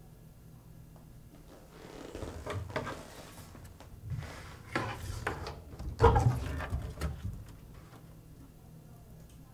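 Handling and opening of a container: scraping and rustling with several knocks, the heaviest about six seconds in, over a low steady hum.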